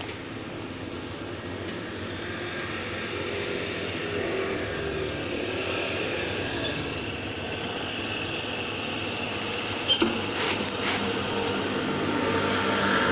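An engine running steadily in the background, its hum slowly growing louder, with one sharp click about ten seconds in.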